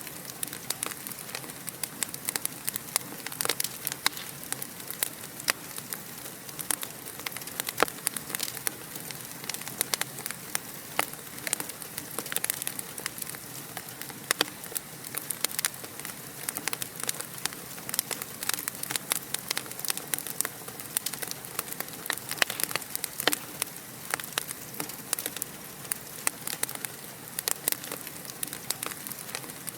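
Fire crackling: a steady hiss with dense, irregular sharp pops and snaps.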